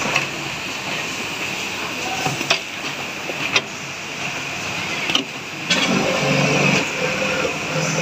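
Automatic pocket-setting sewing machine running with a steady mechanical hum and a few sharp clicks, with people talking over it in the last couple of seconds.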